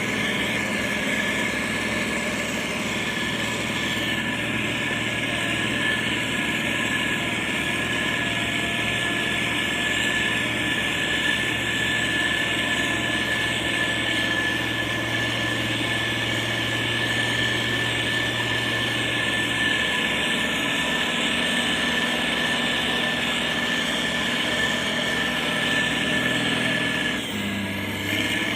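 Motor grader's diesel engine running steadily, with a steady whine over the engine hum and a brief dip in level near the end.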